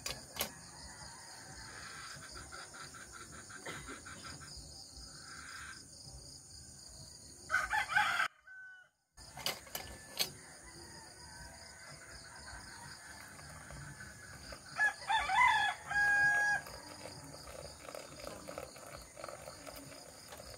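Rooster crowing twice, about 8 seconds and 15 seconds in, the second crow ending in a long held note, over a steady high chirring of insects.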